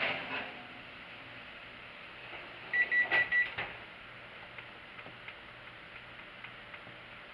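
Four short electronic beeps at one steady pitch from a kitchen timer's keypad as a cooking time of about 10 minutes is set, a little under 3 s in. Before them, a brief clatter right at the start; a faint steady hiss runs underneath.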